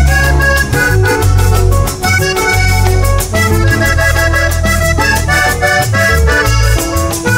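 Live Panamanian música típica (cumbia) band playing an instrumental passage: a button accordion carries the melody over electric guitars, a heavy bass line and steady percussion.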